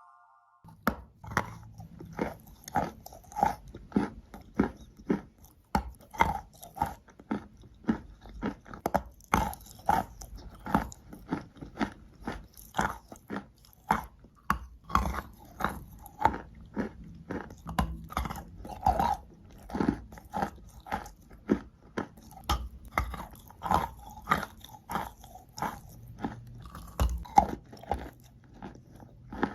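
Wet, sandy, grainy material being crushed: a steady series of sharp crunches, a little under two a second, starting about half a second in.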